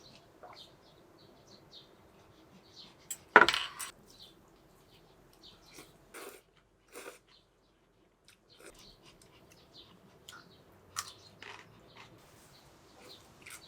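Light clinks and taps of dishes and utensils being handled, with one louder clatter about three and a half seconds in.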